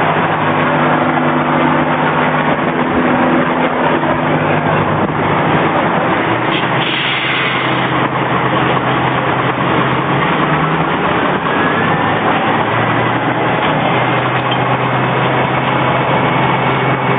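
Fire engine's engine running steadily under a loud, continuous rushing noise. Its low hum shifts in pitch about six seconds in and again a few seconds later.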